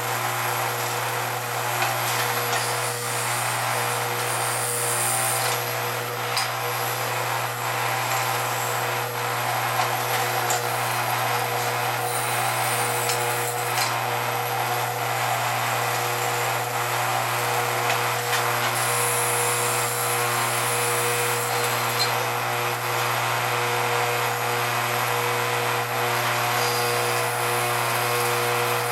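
Lionel No. 464 operating saw mill running: its vibrating conveyor gives a steady electric hum under a constant buzzing rattle as it shakes the log through the mill.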